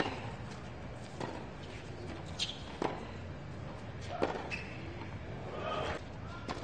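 Tennis ball struck by rackets in a baseline rally: a string of sharp pocks about a second or so apart, over a steady crowd hum.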